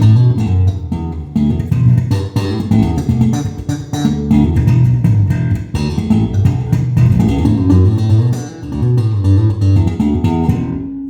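2025 Gibson Tobias Growler four-string electric bass played in a busy run of plucked notes with sharp, percussive attacks. About ten and a half seconds in, the run stops and one note rings on.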